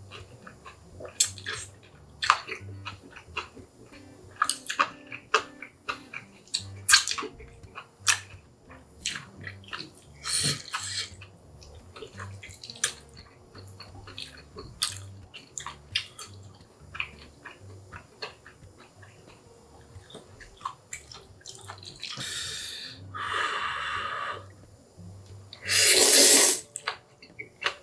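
Close-miked eating of Chapagetti black-bean-sauce noodles: wet chewing and mouth clicks, broken by several slurps of noodles, the loudest near the end.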